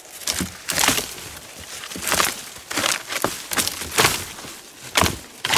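Brush and branches rustling and snapping as someone pushes quickly through dense shrubs, in a string of loud scraping surges with sharp cracks among them.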